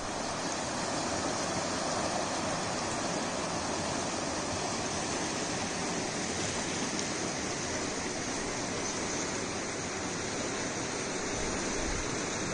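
River water rushing over rocks and through shallow rapids: a steady, even rushing that does not change.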